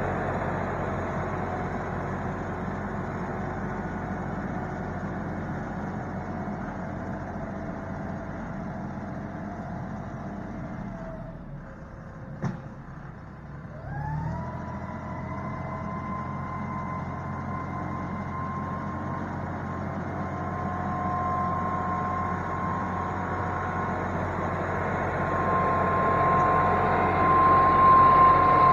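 John Deere utility tractor's diesel engine running as the tractor pulls away and fades, with a single click about halfway. The engine then rises in pitch, and a steady whine grows louder as the tractor backs up close.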